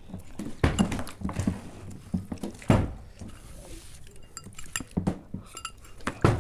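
Spoons and forks clinking and scraping against glass bowls as noodles are eaten. Three heavier thuds, the loudest about two and a half seconds in, as a plastic water bottle is flipped and lands on the table.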